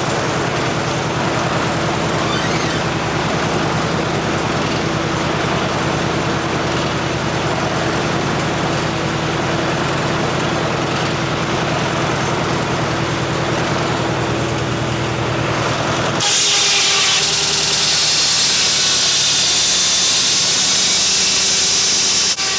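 The engine driving a vintage Frick sawmill runs steadily. About sixteen seconds in, the sound changes suddenly to a louder, steady, high hiss as the low engine tone drops away.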